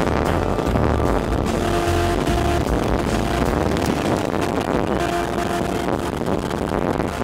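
Wind buffeting the microphone and a boat motor running as a boat travels across open water, under background music with a few held notes.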